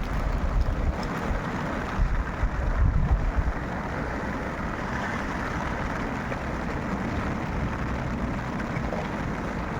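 Wind buffeting the microphone in gusts for the first few seconds, over a steady rushing noise that continues evenly afterwards.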